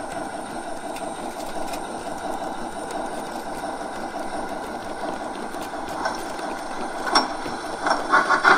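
Gauge 1 brass model of a class 52 steam locomotive running along its track, its ESU LokSound 5XL sound decoder playing steam-locomotive running sounds over the rolling of the wheels on the rails. Near the end a louder, regular beat of chuffs sets in.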